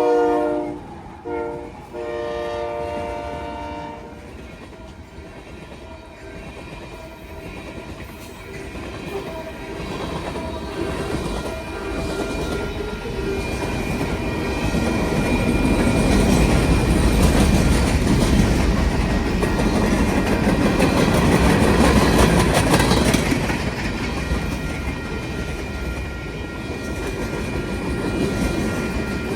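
Union Pacific freight train locomotive horn sounding at a grade crossing: a long blast ends about a second in, then a short blast and a final blast ending about four seconds in. The train then passes, its wheels clattering over the rails. The rumble builds to its loudest about two-thirds of the way through, with steady high ringing tones over it.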